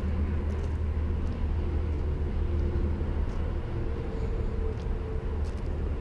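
Steady low outdoor rumble with no distinct events.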